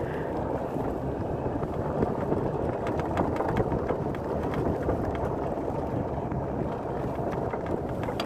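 Golf cart driving over a snow-covered road: a steady low rumble with scattered light clicks and rattles.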